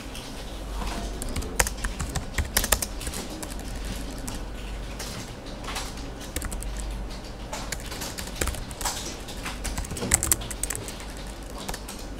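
Typing on a computer keyboard: irregular key clicks at an uneven pace, some strokes louder than others.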